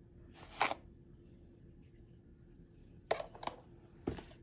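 A few short, faint rustles of salt being sprinkled from a spoon onto raw chicken pieces in a glass bowl, with a soft low knock near the end.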